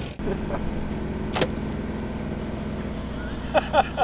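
An engine on the boat running with a steady low hum, with one sharp click about a second and a half in.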